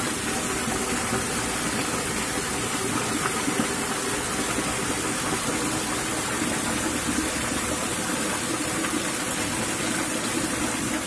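Water pouring over a low ledge into a shallow pool: a steady, even rush.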